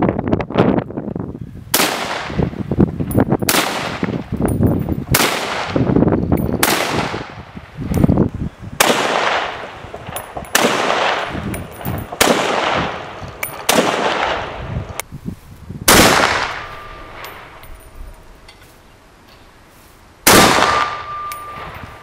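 A Zastava M59/66 semi-automatic rifle in 7.62×39 mm firing about ten single shots, roughly one every one and a half to two seconds, with a longer pause before the last. Near the end, a couple of shots are followed by the brief ring of a struck steel plate target.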